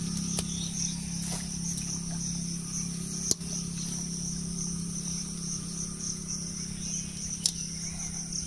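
A steady, high, slightly pulsing chorus of insects chirring, over a steady low hum. Two sharp clicks stand out, about three seconds in and again near the end.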